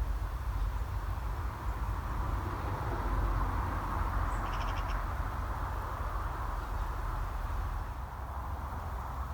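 Birds calling outdoors, with a short quick run of chirps about halfway through, over a steady low rumble.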